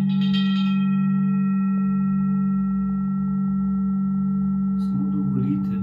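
Sound-therapy instruments ringing: a low, steady tone sounds throughout, and a bright, high chime struck right at the start fades within about a second and a half. Light handling knocks come near the end.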